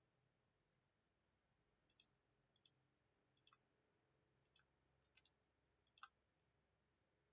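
Faint computer mouse clicks, about seven of them between two and six seconds in, each a quick press-and-release double tick.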